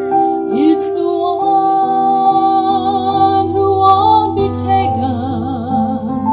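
A woman singing live into a microphone with her own Yamaha electronic keyboard accompaniment, amplified through PA speakers. She holds long notes with vibrato over sustained keyboard chords.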